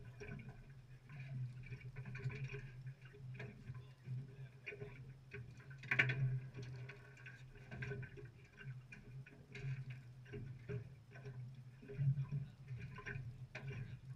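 Faint handling noise aboard a small fishing boat: scattered light clicks and taps over a low steady hum, with a louder knock about six seconds in.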